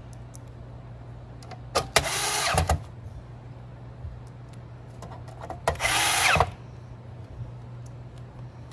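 Cordless drill-driver spinning in two short bursts of under a second each, about four seconds apart.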